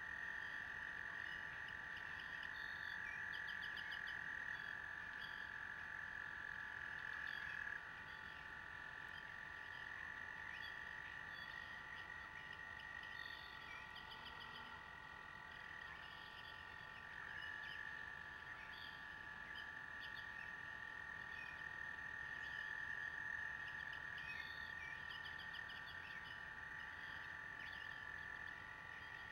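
A steady, high-pitched chorus of trilling frogs, with small birds chirping in short bursts over it.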